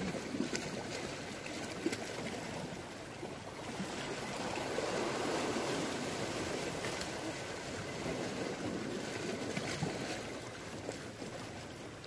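Sea surf washing against a rocky shore: a steady rush that swells gently about five seconds in, with a few faint clicks.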